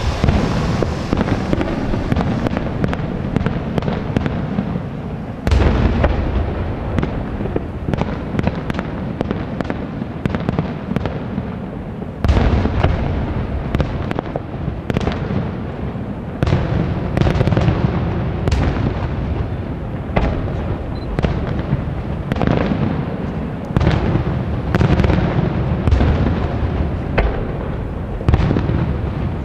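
Aerial fireworks shells bursting in quick succession: a steady run of sharp bangs and crackles, broken by several heavier booms that trail off into a rumble.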